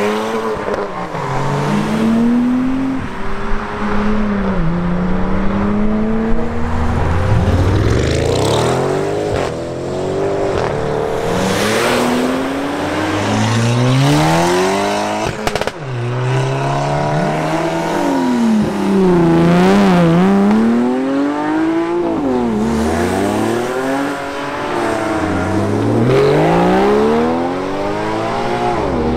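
Performance cars pulling away hard one after another, each engine note climbing in pitch and dropping back at every gear change, several times over.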